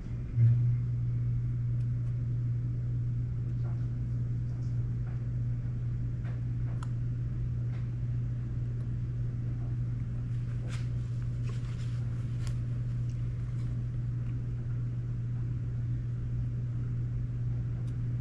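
A small electric motor switching on and running at a steady low hum, with a few faint ticks and clicks of handling over it.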